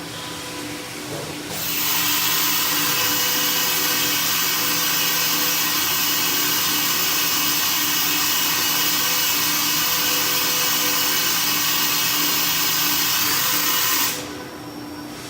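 Fadal VMC 4020HT CNC vertical mill running, with a loud, high whirring hiss that comes in about a second and a half in, holds steady, and cuts off near the end over a lower steady machine hum.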